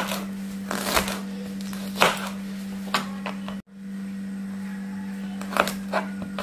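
Kitchen knife slicing shallots and garlic cloves on a plastic cutting board: single knocks of the blade on the board about once a second, a brief break, then a few quicker cuts near the end, over a steady low hum.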